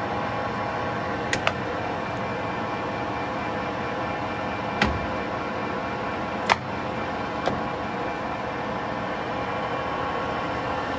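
Clausing Colchester geared-head engine lathe running steadily, spindle at 470 RPM, with a hum and a whine of several steady tones from the headstock gearing. About five sharp metallic clicks come from the carriage and cross-slide handwheels being worked by hand.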